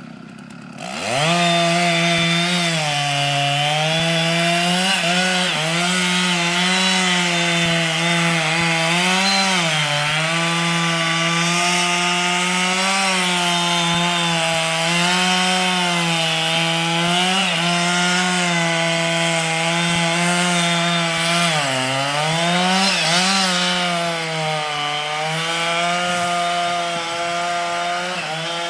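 Chainsaw revving up about a second in, then running at high revs as it cuts through a grand fir. Its pitch dips and recovers several times as the bar bogs under load in the wood.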